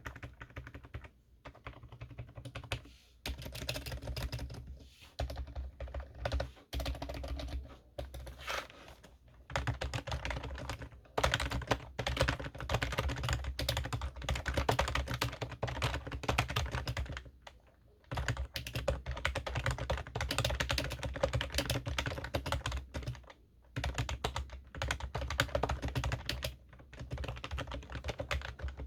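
Typing on a computer keyboard: fast runs of clicking keystrokes broken by short pauses, the longest about 18 seconds in.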